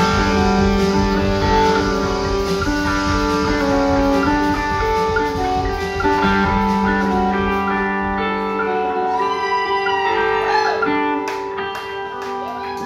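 Live rock band playing: electric guitars strumming chords over bass and drums. About eight seconds in the low end drops out and the guitar chords ring on.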